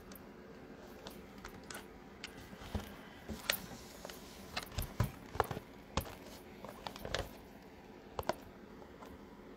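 Handling noise: scattered light clicks and a few dull knocks while a shrink-wrapped trading-card box is held and turned close to the phone, busiest in the middle.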